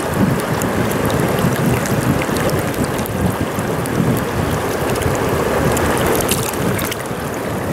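Mountain stream rushing steadily, with a few light clicks scattered through it.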